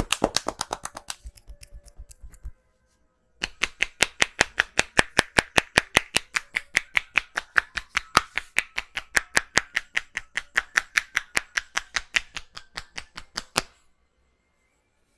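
Hands striking a person's head in quick, even head-massage percussion, about six slaps a second. A first run stops about two and a half seconds in, and a second starts a second later and runs until near the end.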